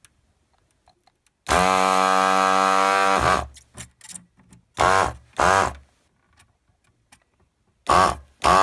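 S-993A desoldering gun's built-in vacuum pump running, sucking molten solder out of plated through-holes. It gives one steady hum of nearly two seconds, then short bursts that start and stop quickly: two about halfway in, and several more near the end.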